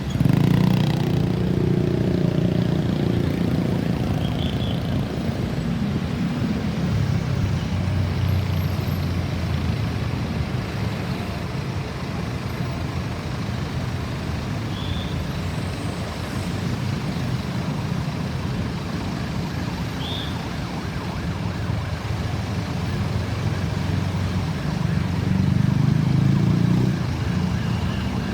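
Road traffic with a heavy vehicle's engine rumbling past. The loudest pass comes right at the start with a falling engine note, then a steady low traffic rumble, which swells again near the end as another vehicle goes by.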